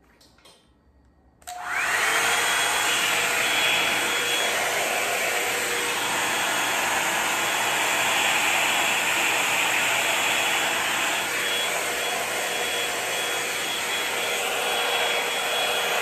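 Revlon One-Step hair dryer brush switched on at its maximum setting about a second and a half in. Its motor spins up with a brief rising tone, then runs steadily: a super loud rush of air with a steady high tone and a lower hum in it.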